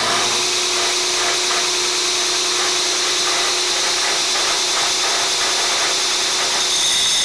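Belt grinder running steadily: a high, even hiss from the abrasive belt over a steady low hum.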